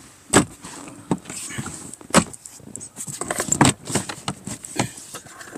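Plastic glove box and dash trim of a 2020 Jeep Compass being handled and unclipped for cabin air filter access: several sharp clicks and knocks, the loudest about half a second in and at about two seconds, with lighter rattling between.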